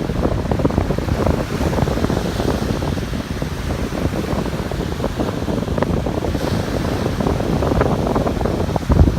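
Ocean surf on a beach under heavy wind buffeting the microphone, a continuous low rumbling rush with a strong gust near the end.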